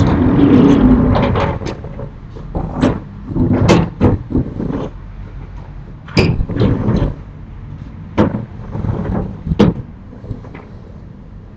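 A series of sharp, irregular knocks and bangs, about a dozen spread over ten seconds. They follow a passing vehicle that fades out in the first second or so.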